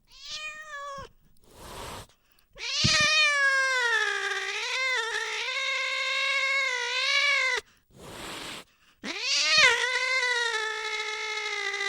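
Angry cat yowling: two long, drawn-out wails whose pitch wavers up and down, with a short call at the start and a brief hiss before each wail.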